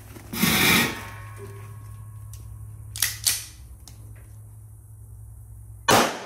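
A single shot from a Beretta 92 9mm pistol near the end, the loudest sound, sharp with a short echo after it. Earlier come a rustling thump as the shooter sits down on a cardboard-topped bucket, and two short knocks about three seconds in.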